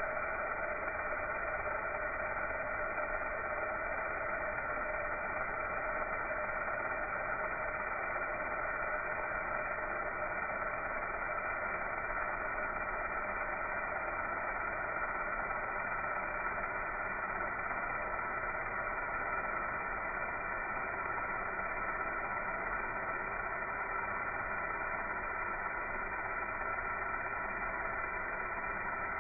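Laser welding machine running: a steady hum and hiss with several held tones, unchanging throughout.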